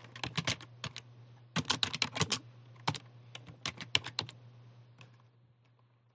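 Computer keyboard being typed on in short, quick runs of keystrokes with pauses between runs, as a shell command is entered. A steady low hum runs underneath.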